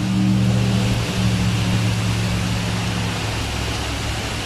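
Heavy rain falling with a steady hiss, over a low motor hum, like a vehicle engine running, that fades out about three seconds in.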